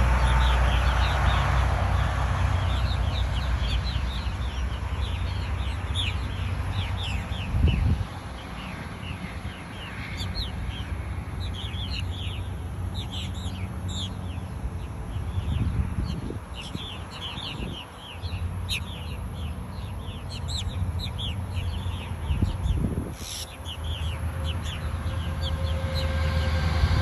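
A purple martin colony calling: many short chirps and chattering calls, thick through most of the stretch, over a steady low rumble.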